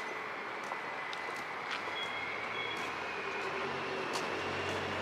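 Steady street traffic noise from cars and buses on the road alongside, with a vehicle engine's low hum building near the end.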